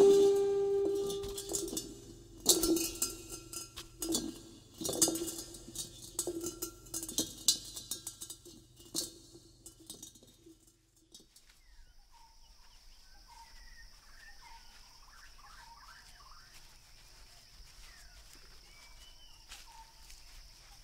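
A pot rolling and rocking on a concrete floor, knocking against it several times, each knock setting off a ringing tone that fades away. Just after ten seconds this cuts off suddenly, and faint outdoor ambience follows: a steady high hiss with scattered bird chirps.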